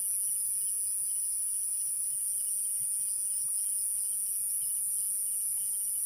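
Steady, high-pitched chorus of night insects, unbroken and even in level.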